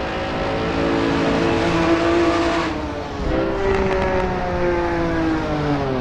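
Sports car engine running at speed, its pitch sliding slowly down, breaking off about halfway and then starting higher to slide down again.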